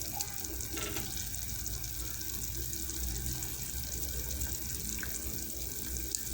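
Fish stew simmering in a pot on the stove, a steady hiss with a few faint clicks.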